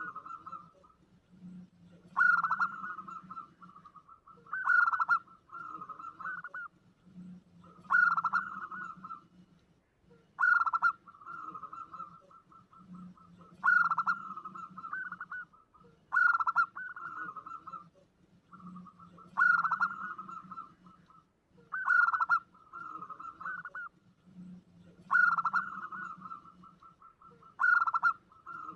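Zebra dove (perkutut) cooing its lure song over and over, one call every two to three seconds. Each call opens with a loud note and runs on in a quick, even trill of softer notes.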